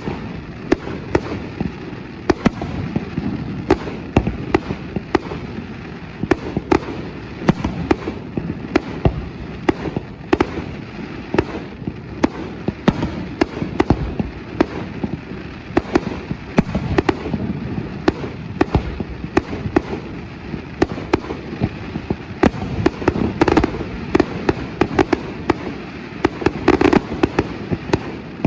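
Aerial fireworks display bursting continuously: a dense run of sharp bangs and cracks, several a second, over a steady low rumble of booms echoing across the harbour water.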